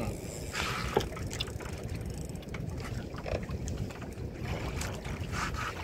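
Steady low rumble of a small fishing boat on the water, with wind on the microphone and a few short sharp knocks around a second in.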